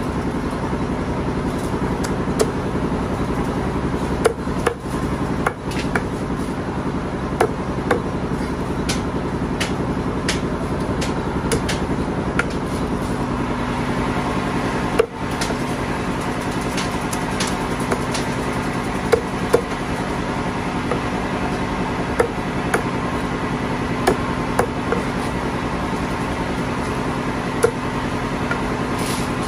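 Meat cleaver chopping raw chicken on a thick wooden log chopping block: irregular sharp thwacks, sometimes two or three in quick succession, over a steady background hum.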